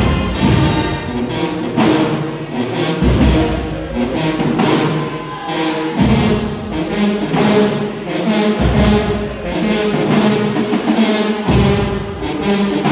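High school marching band playing loudly in the stands: sousaphones, trumpets, trombones and saxophones over heavy bass notes, punctuated by hard drum hits.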